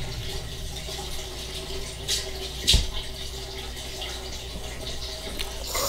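Steady room hiss with a faint constant hum, and two brief soft noises about two seconds in and just under three seconds in.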